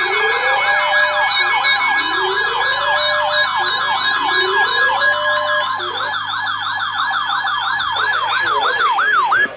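Electronic siren alert tones laid over each other: a fast yelp sweeping about four times a second over a slower wail that rises about every second and a half, with a higher warble above. Part of the mix drops out about halfway, and the rest cuts off suddenly just before the end. This is the attention signal that opens an emergency alert, here ahead of a severe thunderstorm warning.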